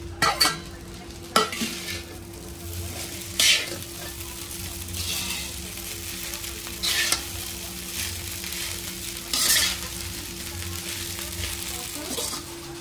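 Egg fried rice being stirred in a black kadai over a gas flame. A steady low sizzle runs under it, and the metal spatula scrapes and knocks against the pan every couple of seconds. The strokes are sharpest in the first second or so, where the steel lid is lifted off.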